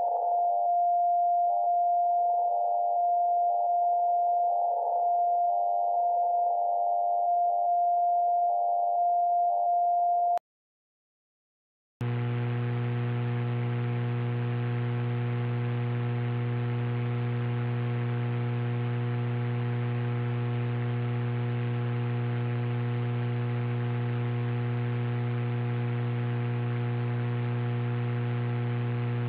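WWV time-signal station received on 10 MHz by a Yaesu transceiver in CW mode, heard as a steady beat tone with fainter side tones, which cuts off after about ten seconds. After a short silence, the receiver on AM at 1.8428 MHz gives only band noise: a steady hiss with a strong buzzing hum.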